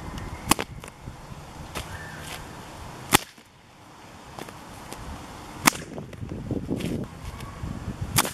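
A 2.3-metre leather cattle whip cracked four times, roughly every two and a half seconds, each a sharp crack, the second the loudest.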